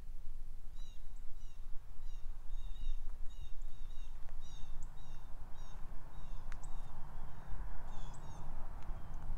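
A bird calling a rapid series of short, high, down-slurred chirps, about three a second, over a steady low background rumble.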